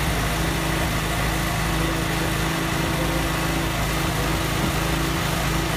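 A small petrol engine of the rescue crew's equipment runs steadily at a constant speed.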